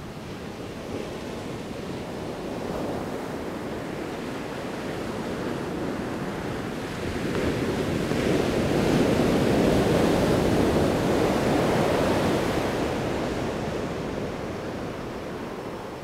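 Ocean surf: waves breaking and washing up the sand, a steady rush that swells to its loudest about halfway through and eases off near the end.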